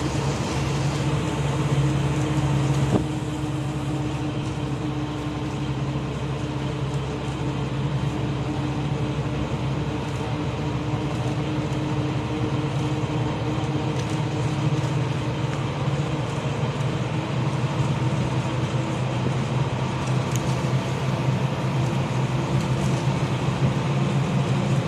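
Moving road vehicle: steady low engine hum over road noise.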